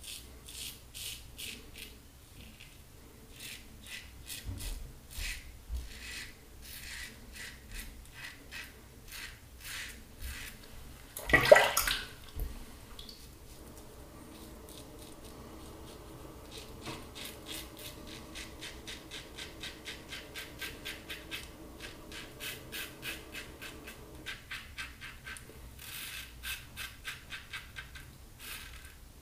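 Double-edge safety razor (Fine Marvel with a Personna blade) scraping through thick lather and stubble in quick, short, rasping strokes against the grain, one after another. A brief, much louder rush of noise comes about eleven seconds in.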